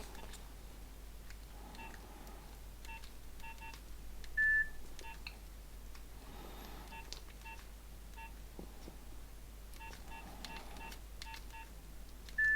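Nokia 1100 keypad tones as its buttons are pressed: short, quiet beeps at one pitch in irregular runs, with one louder, longer, higher beep about four and a half seconds in.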